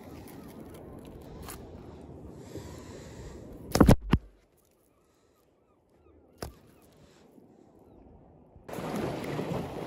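Two loud knocks close to the microphone about four seconds in, as a just-caught bass is handled right against the camera, after which the sound drops out for a moment. A low steady hiss of wind and water comes before the knocks, and a louder rush of wind and water starts near the end.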